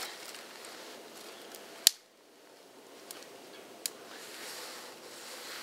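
Campfire crackling and hissing with scattered sharp pops, one much louder pop about two seconds in, after which the hiss drops off suddenly and slowly builds back.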